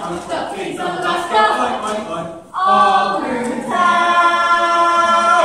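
Performers' voices singing together without instruments, ending on a long held note.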